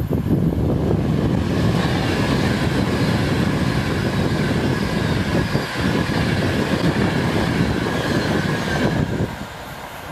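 Virgin Trains Class 390 Pendolino electric multiple unit passing close by at speed: a loud, steady rush of wheels on rail with a thin steady high whine over it. The sound drops off suddenly about nine seconds in.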